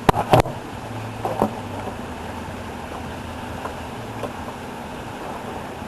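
Two sharp clicks in quick succession, then a softer click about a second later, over a steady low hum: the parts of a G18c-style airsoft electric pistol being handled with a screwdriver while it is taken apart.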